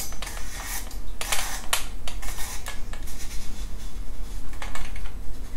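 Spiral compact fluorescent bulb being screwed by hand into a lamp socket: scratchy scraping of the screw base turning in the holder, in short, uneven strokes.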